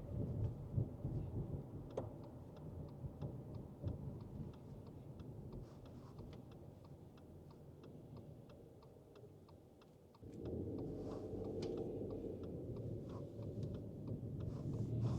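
Cabin noise inside a 2024 Subaru Forester Sport: low road and engine rumble that fades away as the car slows, then comes back suddenly about ten seconds in as it picks up speed again. Through it, a turn-signal indicator ticks steadily.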